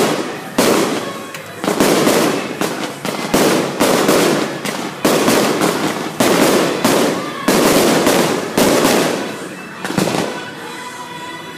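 Aerial firework shells bursting in quick succession, about one loud bang a second, each bang followed by a fading rumble. The bangs stop a little before the end.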